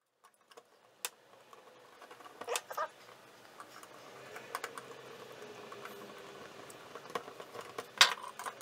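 Hand screwdriver driving a screw into a graphics card's metal mounting bracket: faint scraping and small scattered clicks, with a sharper click near the end.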